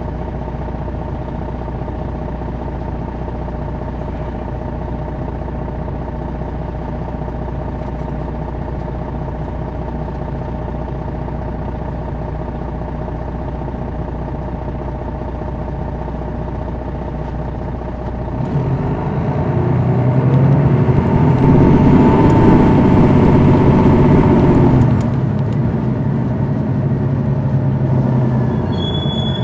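2001 MCI D4000 coach's Detroit Diesel Series 60 engine running steadily. About eighteen seconds in it revs up and grows loud under load, with a high whistle over it, then eases off a few seconds before the end.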